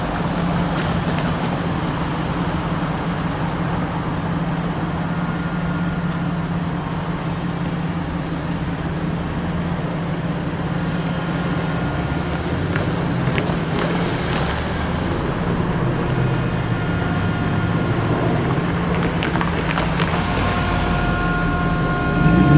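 Steady road-traffic noise with a low engine hum, getting louder near the end.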